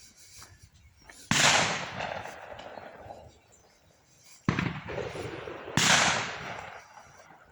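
Three shotgun shots from clay pigeon shooting, each with a long echoing tail. A single shot comes first, then a pair about three seconds later, a little over a second apart.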